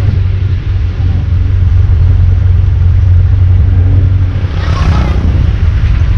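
Jeep engine running under way, a loud steady low rumble with road and wind noise over it. A brief higher, wavering sound rises over it about four and a half seconds in.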